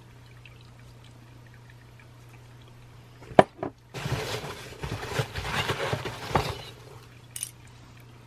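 Foam packing peanuts rustling and shifting for about three seconds as a gloved hand digs through a cardboard box, preceded by a couple of sharp knocks. A low steady hum runs underneath.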